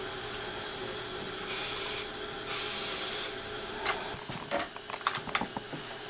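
Two short bursts of hissing compressed air over a steady hum, the second a little longer, followed by a scatter of light clicks and taps.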